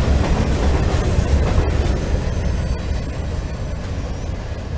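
Freight train cars rolling past on the rails, a steady low rumble, getting a little quieter in the second half as the end of the train goes by.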